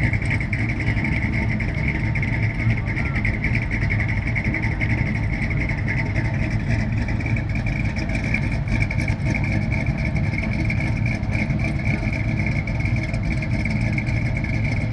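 Car engine running steadily with a low rumble, with a steady high-pitched whine over it.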